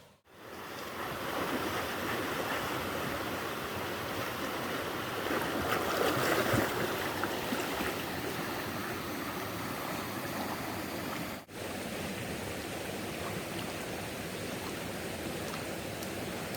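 Mountain stream rushing over rocks, a steady flowing-water noise that drops out briefly about eleven seconds in.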